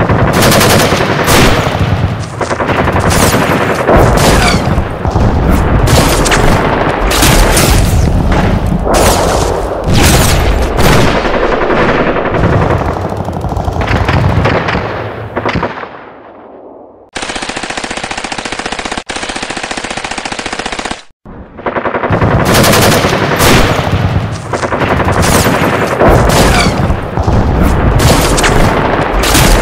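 Battle sound effects: rapid machine-gun and rifle fire, loud and dense. About seventeen seconds in the shooting gives way to a steady noise for about four seconds, then the gunfire starts again.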